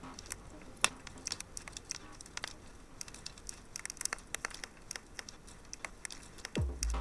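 Fire crackling, with irregular small pops and snaps. Near the end a deep, thudding bass beat of the background music comes in.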